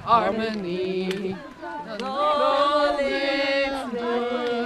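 Several people singing a chant-like song together as they walk, with long held notes, and a couple of short sharp clicks.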